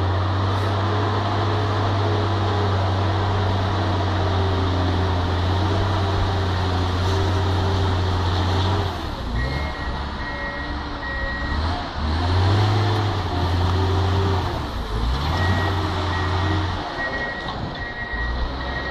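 Tracked snow groomer's diesel engine running steadily, then rising and falling in pitch as the machine manoeuvres from about halfway through, while a reversing alarm beeps in short repeated tones.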